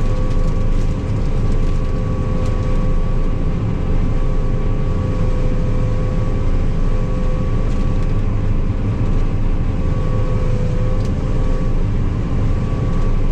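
Combine harvester running steadily while cutting soybeans: a low drone of engine and threshing machinery with a steady whine over it.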